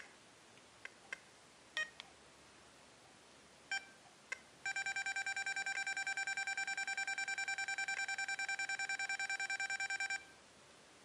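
XP Deus remote's key beeps: a few single short beeps as buttons are pressed, then a held button auto-repeating in rapid, even beeps, about ten a second, for some five seconds while the discrimination value scrolls down, stopping abruptly.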